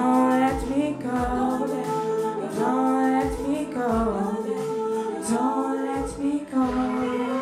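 Two women singing long held notes live, over a backing track with a low beat.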